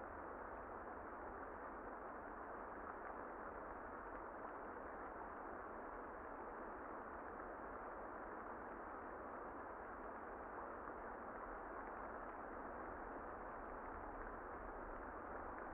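Steady muffled rain, a dull, even hiss with the high end cut away and no music audible.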